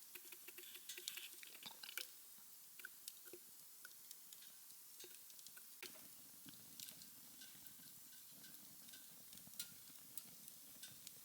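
Near silence with scattered faint clicks and ticks.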